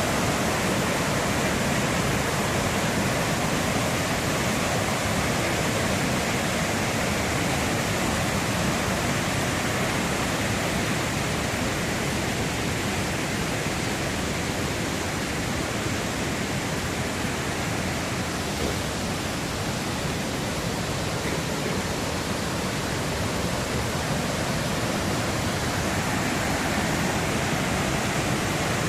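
Waterfall in flood after heavy rain, a flash flood pouring down: a loud, steady roar of rushing water without a break.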